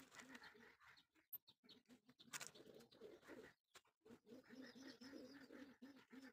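Near silence, with a faint low cooing repeating steadily in the background and a soft click about two and a half seconds in.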